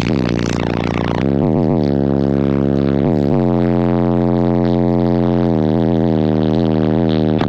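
Bass-heavy music played very loud through a car audio system of four Skar Audio VXF-15 15-inch subwoofers on a Taramps MD 8000 amplifier, with deep bass notes that slide down in pitch several times.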